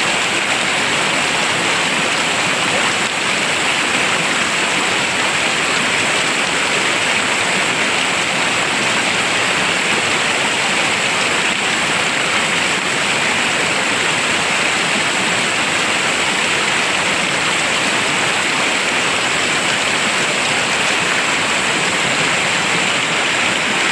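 Rushing river water, a steady unbroken rush.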